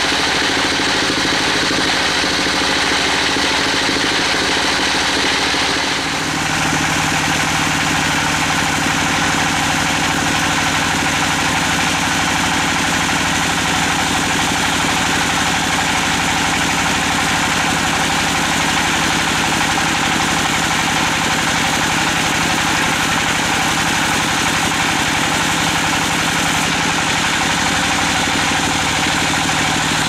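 A large band sawmill running steadily, its drive engine humming without let-up. The tone shifts abruptly about six seconds in, then holds steady with a low hum.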